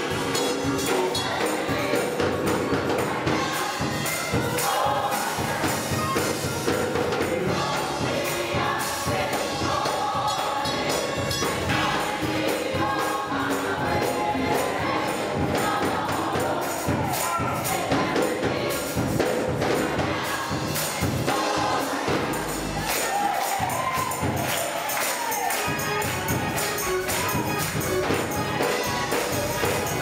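Gospel choir singing with a tambourine jingling on the beat.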